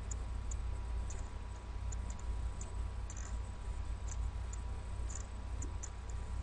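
Faint, irregular computer-mouse clicks while drawing on screen, over a steady low electrical hum.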